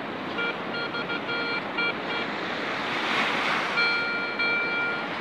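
Garrett 150 metal detector beeping as its coil passes over a target in a dug hole: a string of short, choppy beeps, then a longer steady tone near the end. Surf washes in the background, swelling in the middle.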